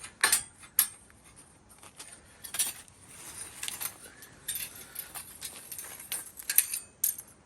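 Broken Wood-Mizer sawmill band blade being handled, the thin steel band clinking and rattling in a series of short, sharp metallic clicks.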